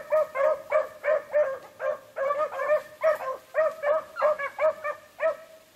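Beagles baying on a rabbit's track, giving short, repeated hound calls about three a second without a break.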